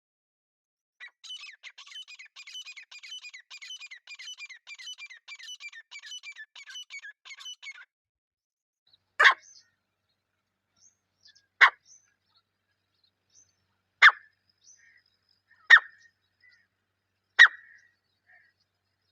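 A francolin (teetar) calling: a fast, even run of high chirps for several seconds, then five loud, sharp single calls about two seconds apart.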